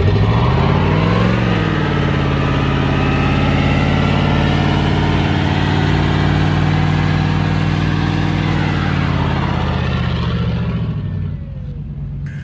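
OBS-era GM pickup's engine revving up and held at high revs for several seconds in a burnout, the rear tire spinning on the pavement. Near the end the revs drop away as the truck pulls off.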